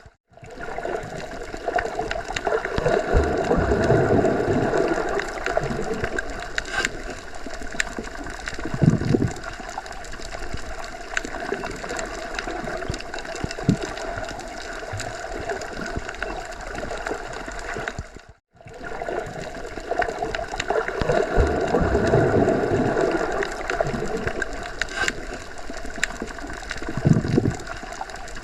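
Underwater ambience: a steady wash of moving water that swells and eases. It is a loop, with a brief dropout about 18 seconds in where the same stretch starts over.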